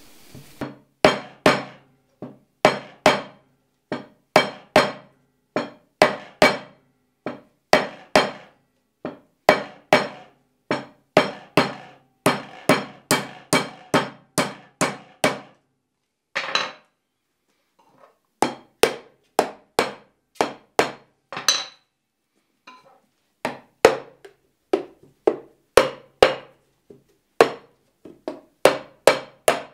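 Whole coconut being struck again and again around its middle with a hard tool while it is turned, sharp knocks about two a second, often in pairs, with a couple of short pauses; the blows crack the shell along its equator so it splits into halves.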